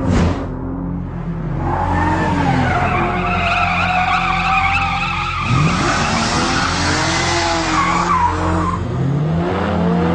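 BMW 1 Series M Coupé drifting, its tyres squealing in a long wavering screech from about two seconds in until near the end, over the engine running hard; the engine note climbs again near the end.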